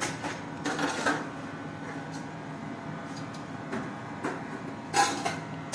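Commercial kitchen background: a steady low hum of kitchen equipment under scattered clicks and clatter of handling, with a louder brief clatter about five seconds in.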